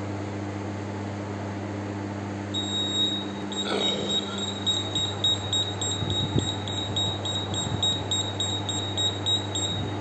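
Ceiling-fan air-delivery test rig at work as its motorised measuring arm moves: a steady low electrical hum, and from about two and a half seconds in a high-pitched tone that soon breaks into rapid even pulses, about three a second.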